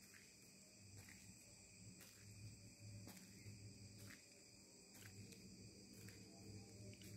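Faint, steady chorus of crickets at night, with soft clicks about once a second.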